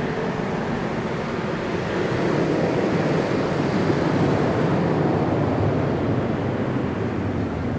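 Boeing 737-700's CFM56-7B turbofan engines at takeoff thrust as the jet lifts off and climbs away: a steady, loud rumble of jet noise. Its higher hiss thins out over the last few seconds.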